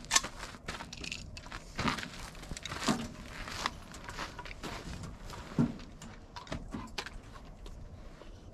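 Scattered knocks, scuffs and crunching steps of someone climbing onto a metal truck flatbed and settling into a seat at a rifle rest; no shots are fired.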